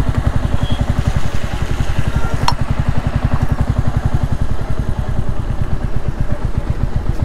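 Royal Enfield Classic 350's single-cylinder engine running at low revs as the bike creeps along in slow traffic, a steady even thump of exhaust pulses. A single sharp click about two and a half seconds in.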